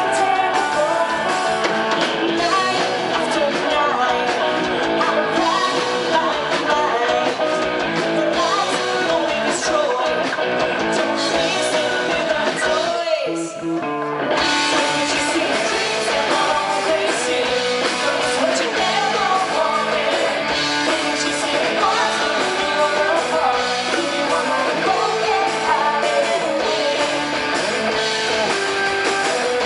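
Rock band playing live, with a singer and guitars. About 13 seconds in the music drops out sharply for about a second, then comes back.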